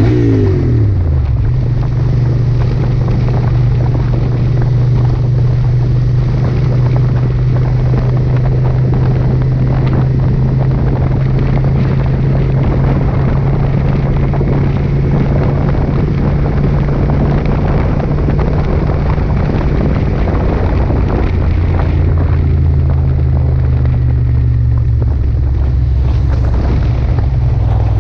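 Motorcycle engine running under way, with wind rushing over the microphone. The engine note slides down about a second in as the revs drop, then holds a steady hum, and drops to a lower pitch about two-thirds of the way through.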